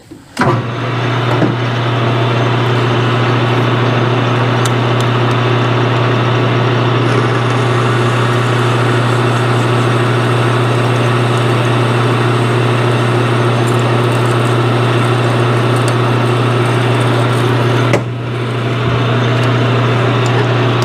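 Machine tool running steadily with a strong hum, its reamer cutting a 7/16-inch hole in a metal part. The sound eases slightly near the end.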